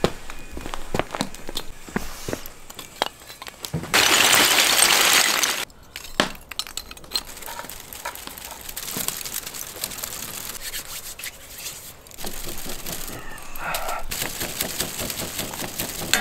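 Charcoal fire crackling and popping as it is fanned by hand, with sharp cracks in the first few seconds. About four seconds in there is a loud rushing hiss lasting under two seconds that cuts off suddenly.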